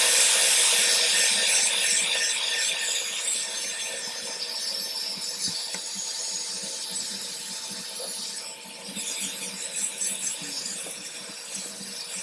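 Heat gun running: a steady hiss of blowing air with a faint hum, loudest for the first couple of seconds and then a little quieter, heating the phone to soften the adhesive holding the LCD.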